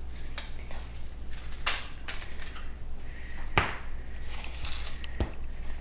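Scattered clicks, knocks and rustles of hands working with a food can and pizza dough on a kitchen surface, with a sharper knock about three and a half seconds in.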